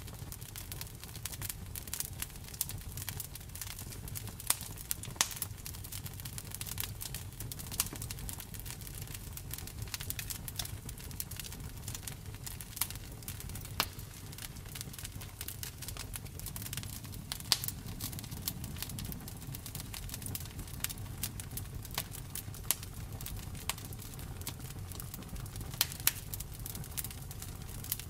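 Wood fire burning steadily, with frequent irregular sharp pops and snaps over a low rumble of the flames.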